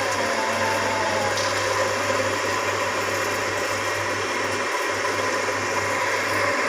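A small motor running steadily, a constant mechanical hum with a low drone beneath it.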